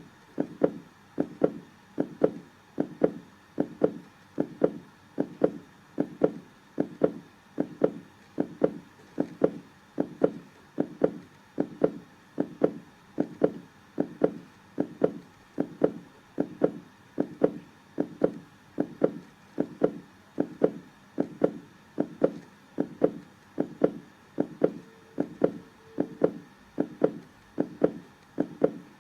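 Heartbeat sound: a steady, even rhythm of low double thumps (lub-dub) repeating through the whole stretch.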